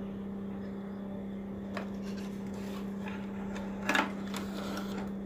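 Steady low electrical hum, with a few faint clicks and a short rattle of handling about four seconds in.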